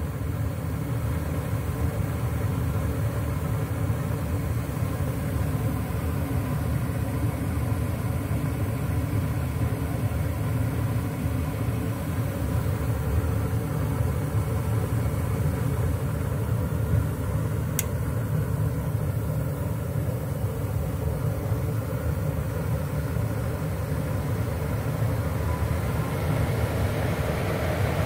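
Gas furnace of a 2006 American Standard Freedom 80 running its heat cycle: a steady low rumble from the draft inducer motor and five lit gas burners, with one faint tick about two-thirds of the way through.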